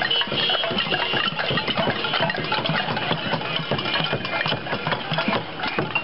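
Many metal pots and pans being struck together in a dense, continuous clatter of overlapping clanks, as in a cacerolazo protest.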